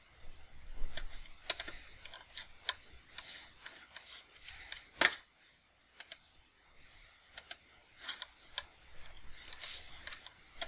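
Computer keyboard and mouse clicking as keys are tapped one or two at a time, irregularly, with short pauses between. One click about five seconds in is louder than the rest.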